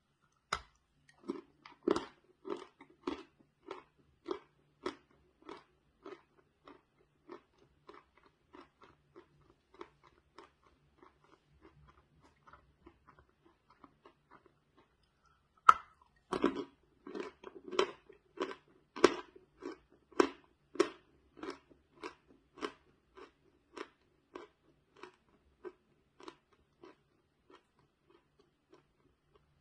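A dry chalk bar bitten through with a sharp crack, then crunchy chewing at just under two chews a second that grows fainter. About halfway through, a second bite cracks off another piece and louder crunching starts again, thinning out toward the end.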